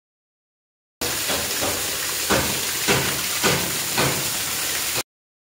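Water jet gushing and splashing, a steady rushing hiss with louder surges about every half second. It starts suddenly about a second in and cuts off suddenly just before the end.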